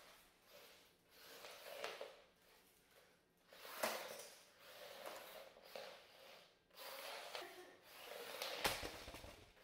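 A small 1-pound combat robot's drive motors and wheels scurrying across a wood floor in several short bursts, with a couple of light knocks.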